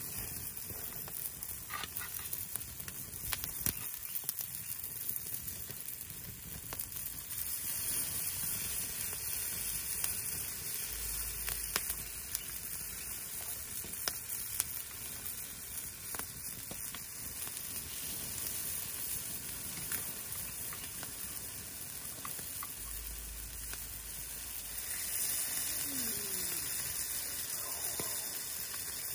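Chicken grilling over a fire, sizzling with a steady hiss and scattered crackles and pops.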